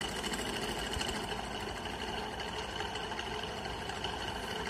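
775 DC motor running at steady speed, turning a homemade drive shaft through two universal joints made from pen parts. It makes an even, high-pitched motor whine.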